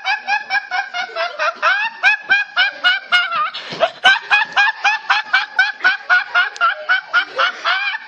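A teenage boy laughing hard: a long unbroken run of short, high laugh pulses, about five a second.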